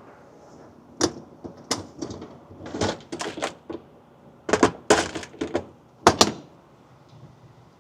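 A run of about a dozen sharp knocks and clacks in irregular clusters, starting about a second in and stopping about six seconds in.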